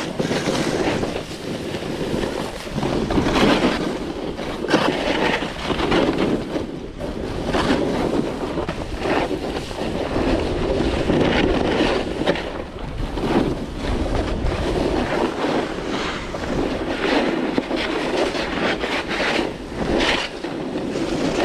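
Wind rushing over the camera microphone during a fast run down a ski slope, with edges scraping across hard, mostly artificial snow in surges every second or two as the rider turns.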